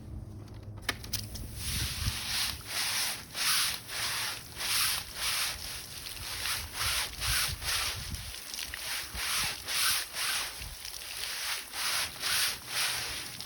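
A window screen being pushed back and forth through the bristle brushes of a screen-cleaning machine. It makes a rhythmic scrubbing swish about twice a second, starting about a second in.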